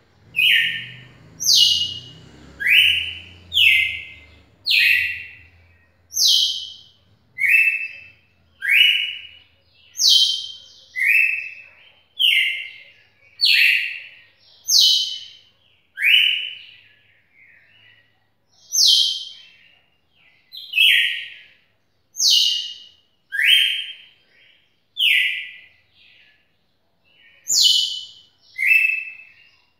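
Red-cowled cardinal singing a long, continuous song of loud whistled notes, a higher note alternating with a lower one, repeated steadily with a brief pause a little past the middle.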